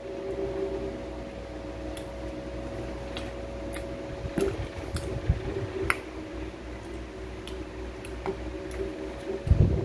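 Close, wet chewing and mouth clicks of someone eating red dates (jujubes), over a steady electrical hum, with a low bump near the end.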